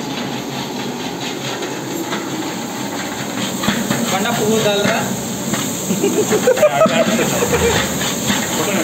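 Gas burner hissing steadily under a large metal cooking pot while a long metal ladle stirs the food, scraping and clicking against the pot, with voices in the background.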